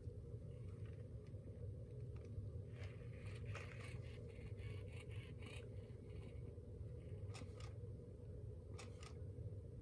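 Sony aibo ERS-1000 robot dog's joint motors whirring in short spells, with light clicks and scrapes as it moves its head and legs, over a steady low hum.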